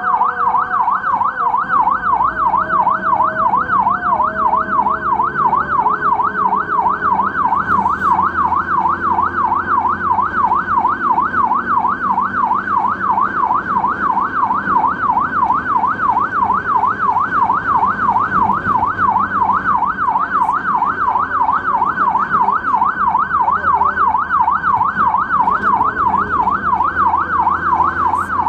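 Ambulance siren in a rapid rising-and-falling warble, its pitch sweeping up and down two to three times a second without a break.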